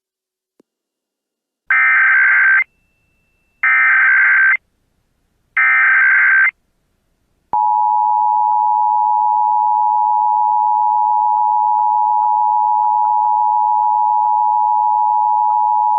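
Emergency Alert System tones opening a required monthly test: three one-second bursts of SAME digital header data tones about a second apart, then the steady two-tone attention signal (853 and 960 Hz together) starting about seven and a half seconds in and held to the end.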